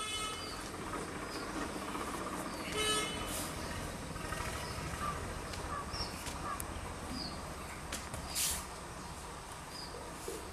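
Background traffic rumble with a vehicle horn beeping briefly twice, once at the start and again about three seconds in. Short hissy noises and faint high chirps are scattered through it.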